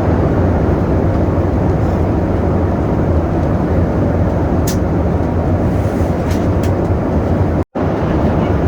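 Cabin noise aboard a Boeing 737 in flight: a steady loud rumble of jet engines and rushing air. It cuts out for a moment near the end.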